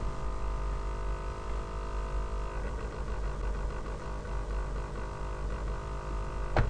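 Laptop cooling fan humming steadily, with a low hum and several steady whining tones whose pattern changes a few seconds in; the fan's bearings are failing.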